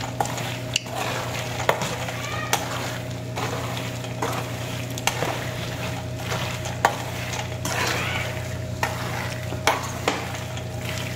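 A metal spoon stirring roasting peanuts in a rice cooker pot: a continuous rattling rustle of nuts, with sharp clicks of the spoon against the pot every second or so, over a steady low hum.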